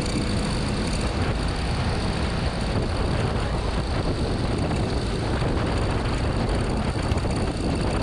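Motorcycle ridden at speed, heard from an onboard camera: engine running under a steady rush of wind noise.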